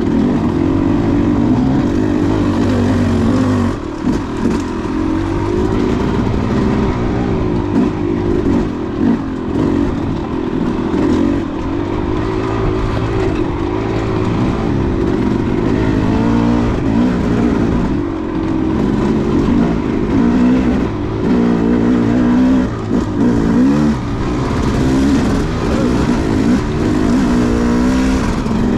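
KTM 300 two-stroke dirt bike engine being ridden, its pitch rising and falling repeatedly with the throttle, with a few brief drops off the throttle.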